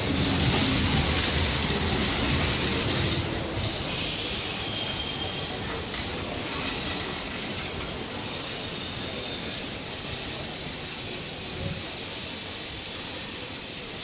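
Solapur–Kolhapur–Hyderabad Express passenger coaches rolling past along the platform: the steel wheels rumble on the rails under a steady high-pitched squeal. The rumble eases off after about four seconds while the squeal carries on.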